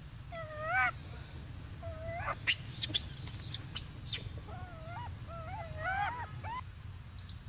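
Golden snub-nosed monkey calling: short, wavering high calls in several bunches, over a steady low hum.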